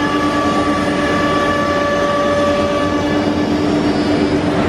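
Holztek CNC nesting router at work: a steady spindle whine over a loud, even rushing noise as the head routes through a board panel. Part of the higher whine fades about three seconds in while the main tone carries on.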